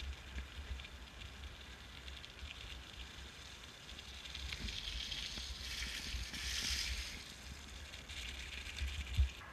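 Bicycle ridden along a gravel track: tyre noise with a low wind rumble on the GoPro's microphone. The hiss swells for a couple of seconds past the middle, and there is a single thump near the end.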